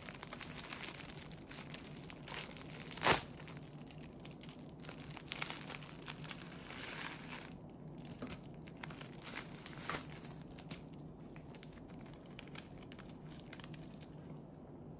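Thin plastic film wrapper of a packaged onigiri being torn open and pulled off by hand, crinkling and rustling, with one sharp loud crackle about three seconds in. The crinkling thins out after about ten seconds.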